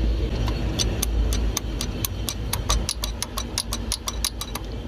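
Loose number-one rocker arm of a Cummins 24-valve diesel clicking quickly, metal on metal, about six or seven times a second as it is worked back and forth by hand, over a steady low engine rumble. The free play means the tappet clearance has gone far out, so the intake valve is not being pushed open.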